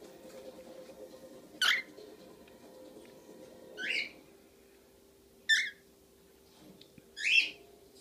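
Young cockatiels giving four short, high chirping calls a second or two apart, most of them falling in pitch.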